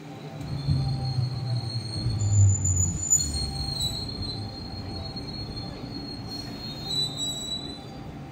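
JR West 221 series electric train running into a station and slowing to a stop: a low rumble of the wheels on the rails, loudest in the first few seconds, under a steady high squealing that lasts until near the end.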